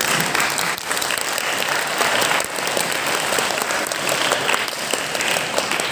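Audience applauding steadily, breaking out right as the choral-speaking performance ends.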